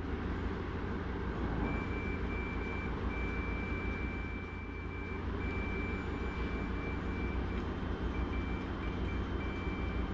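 A steady low machine rumble and hum, with a single high electronic beep that sounds in long stretches broken by short gaps from about a second and a half in.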